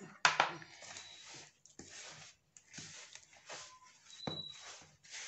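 Hands mixing flour with a milk-and-oil liquid in a plastic bowl: irregular rustling strokes of dough being worked, the loudest just after the start.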